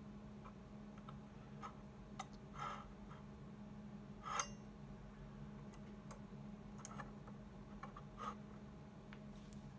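Scattered small clicks and taps of aluminium electrolytic capacitor leads being pushed into and pulled out of a handheld LCR meter's test terminals, with one sharper click a little past four seconds in. A low steady hum runs underneath.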